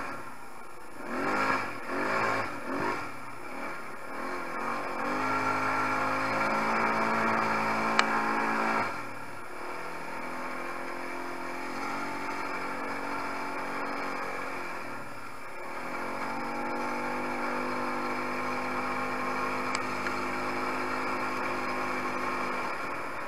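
A 250 cc quad bike's engine, revving in three quick blips and then pulling steadily under throttle; the engine note drops off about nine seconds in and picks up again to a steady pull about two-thirds of the way through.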